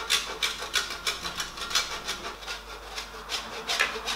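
Parmesan being grated on a stainless steel box grater, a quick run of rasping strokes, about four a second.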